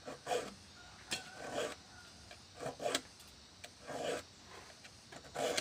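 Small file rasping across the teeth of a handsaw blade, sharpening a dull wood saw: about half a dozen short strokes, roughly one a second, at an uneven pace.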